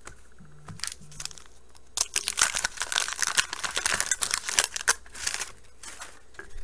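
Wax-paper wrapper of a 1989 Bowman baseball card pack being torn open and crinkled by hand, a dense crackling from about two seconds in to about five and a half seconds.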